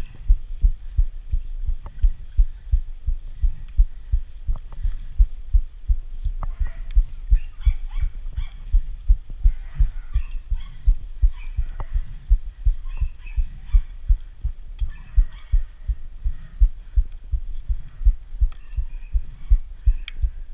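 Deep rhythmic thumping, about three beats a second, as a rider pedals a mountain bike uphill with the camera strapped to his body. Fainter high chirping sounds come and go from the middle on.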